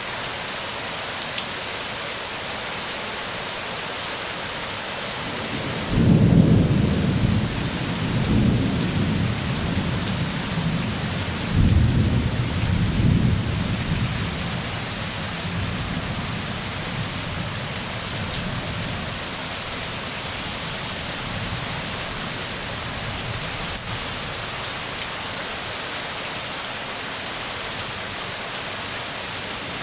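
Steady rain with rolling thunder. A rumble breaks in suddenly about six seconds in, swells again around twelve seconds, and fades away by about sixteen seconds, leaving only the rain.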